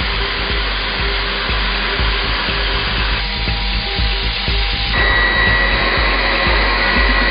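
Steady rushing machining noise from a Doosan DHF 8000 CNC milling machine at work, changing character about three seconds in and again about five seconds in, when a thin steady whine joins it. Background music plays underneath.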